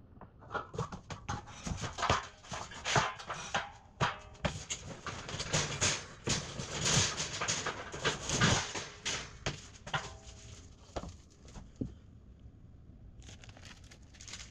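Cardboard shipping box being pulled apart and scraped about, with irregular rustles and sharp knocks from the steel shelving posts and beams being handled. It dies down for a moment; near the end a plastic hardware bag rustles.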